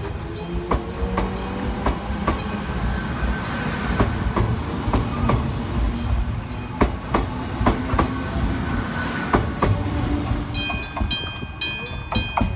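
Train running over a level crossing, its wheels clacking over the rail joints above a low rumble. About ten seconds in, the crossing's electric gong bell comes through, struck in a fast, even ring.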